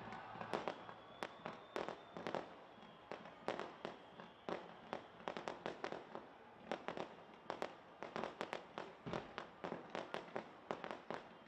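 Fireworks display launched from a tower, going off in many sharp bangs and pops in quick, irregular succession.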